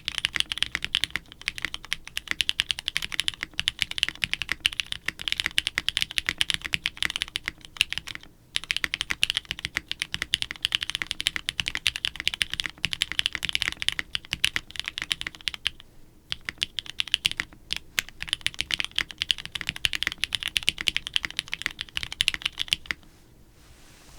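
Fast, continuous typing on a plateless mechanical keyboard with soldered Kailh-stem Cherry switches: a dense run of keystrokes. It breaks briefly about eight and sixteen seconds in and stops a second before the end.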